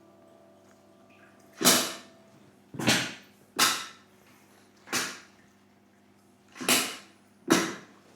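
Adjustable treatment table being set into position: six loud, short, sharp bursts about a second apart, each dying away quickly, over a faint steady hum.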